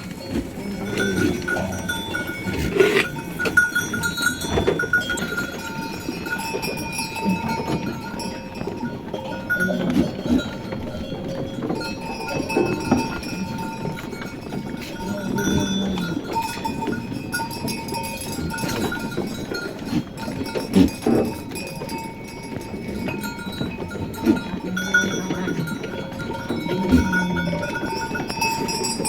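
A flock of sheep bleating at intervals over the steady jangle of many livestock bells.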